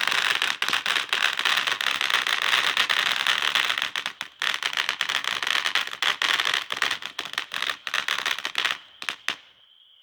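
Small consumer firework fountain ('fireworks in a can') going off: a dense, continuous spray of crackles and pops over a hiss, thinning to a few last pops about nine seconds in and then burning out.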